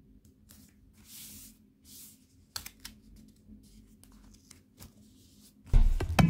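Soft rustling and scratching of a self-adhesive reflective fabric strip being handled and pressed onto a nylon rain poncho, with a few light clicks. Near the end, electronic music with a drum beat starts loudly.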